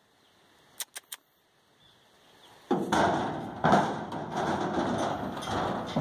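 A horse's hooves thudding and clattering on the floor of a stock trailer as it steps up and walks in, starting loudly a little under three seconds in. A few sharp clicks come about a second in.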